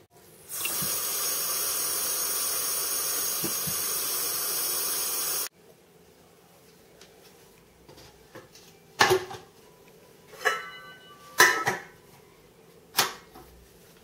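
Water running into the rice cooker's pot of rice for about five seconds, then stopping abruptly; then four or five sharp knocks and clicks, like the pot being handled.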